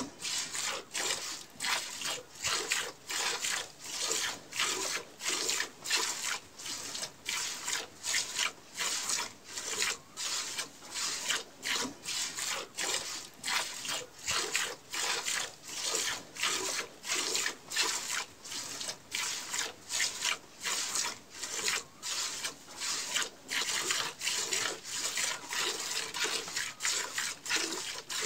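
Streams of milk squirting from a cow's teats into a steel bucket during hand milking, in an even rhythm of about two squirts a second.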